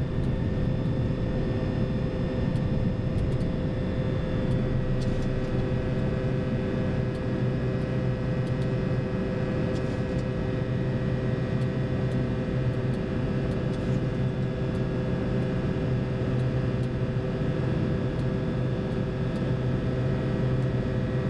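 Steady cockpit noise of a Boeing 737-200 climbing out just after liftoff at takeoff thrust: a constant rumble and rush from its Pratt & Whitney JT8D engines and the airflow, with a few steady hum tones running through it.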